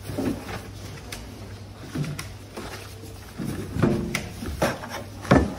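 Groceries being handled at a supermarket checkout: a handful of short knocks and clatters as items are moved across the counter and scanner, the loudest near the end, over a low steady hum.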